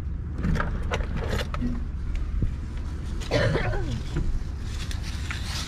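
Steady low rumble of a car running slowly, heard from inside the cabin, with scattered clicks and rustles and a few brief murmured voice sounds.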